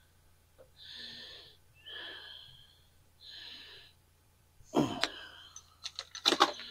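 A man's wheezy breathing close to the microphone, about one breath a second. Near the end come a sharp clatter and a quick run of clicks and knocks as a corded rotary tool is picked up from a cluttered workbench.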